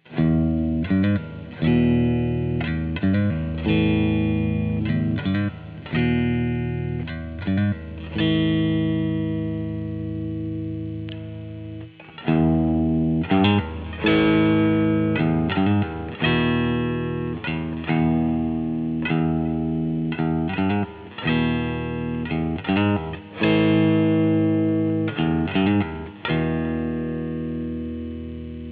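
1994 Mexican-made Fender Stratocaster electric guitar, fitted with GFS Jimi reverse pickups, playing chords: a run of struck chords, some cut off short and others left ringing for a couple of seconds, the last one fading out near the end.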